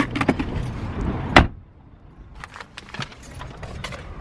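A car door shutting with a single loud thud about a second and a half in, among lighter clicks and rattles of handling at the car.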